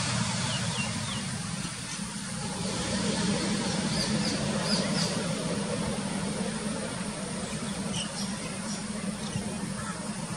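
ATR 72-600 turboprop's engines and propellers running with a steady drone as the airliner rolls out along the runway after landing.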